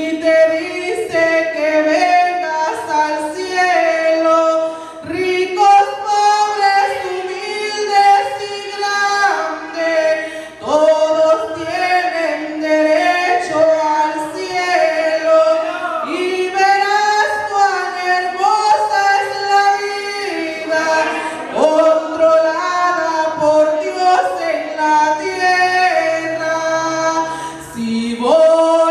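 A woman singing a Spanish-language hymn unaccompanied into a microphone, in long held phrases with short breaks between them.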